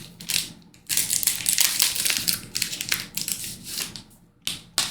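Trading card pack wrapper crinkling and crackling as it is handled and opened, with a short pause about a second in and two sharp crackles near the end.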